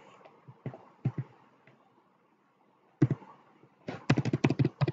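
Typing on a computer keyboard: a few scattered keystrokes, then a quick run of keystrokes near the end.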